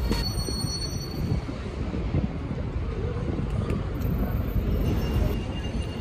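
Busy city street ambience: a steady low rumble of traffic and buses, with a few faint high whines over it.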